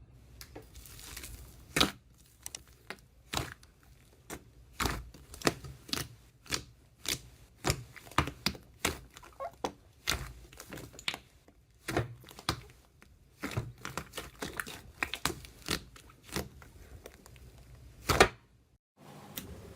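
Slime being pressed and worked, giving irregular clicks and pops, some louder than others. It stops abruptly shortly before the end.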